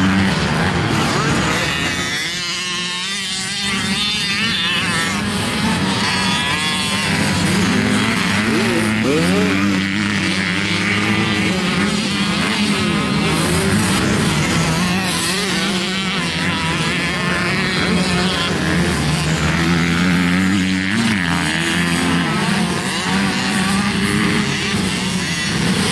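Several 85cc two-stroke motocross bikes running on a dirt track, their engines overlapping and revving up and falling away as the riders go through the course.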